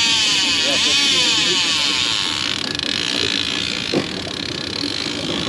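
Fishing reel's spool whirring as line runs out fast under a sinking magnet, a steady high hiss that fades away about two and a half seconds in. A single knock follows about four seconds in.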